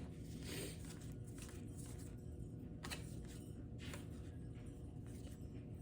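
Faint rustles and soft clicks of baseball cards being handled and slid off a stack, a few at irregular moments over a low steady room hum.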